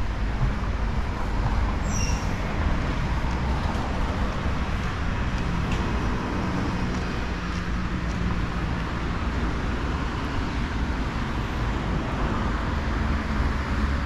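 Steady road traffic noise: an even hiss with a low rumble from passing vehicles.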